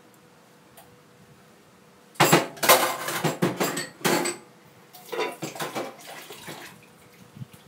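Kitchen utensils being cleared away: a metal knife and tongs clattering against a wooden chopping board and steel tray. There is a loud run of clatter about two seconds in and a second, softer run shortly after.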